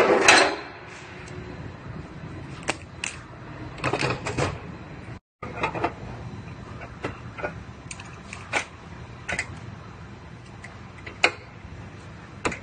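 Scattered light clanks and knocks of a steel frame-rail section being handled and set in place against the car's cut frame rail, over a low, steady shop background. The sound drops out for a moment about five seconds in.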